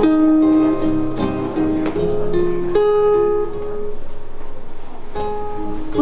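Two acoustic guitars playing an instrumental passage live, plucked melody notes ringing over picked chords.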